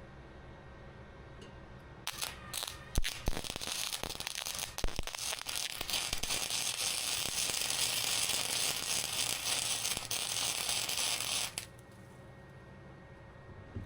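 Arc welding on a steel hinge piece: a few short stuttering starts, then a steady crackling weld run of about eight seconds that cuts off abruptly.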